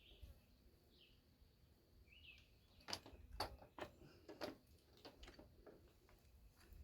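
A bird chirps a few times. From about halfway in comes a run of irregular light clicks and taps, typical of hand tools and bolts being handled while a tractor starter is unbolted.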